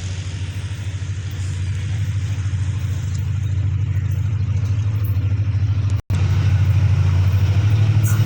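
Diesel locomotive ZCU-30 No. 6319's engine throbbing under power as it pulls the train in, growing steadily louder as it nears. The sound cuts out completely for a split second about six seconds in.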